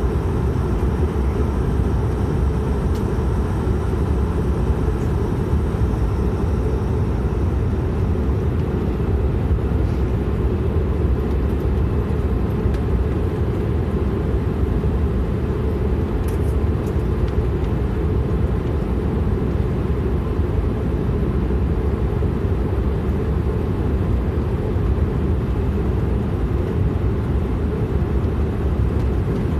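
De Havilland Canada Dash 8-400's Pratt & Whitney Canada PW150A turboprop running at low power on the ground, its propeller turning slowly. Inside the cabin it is heard as a steady, deep drone.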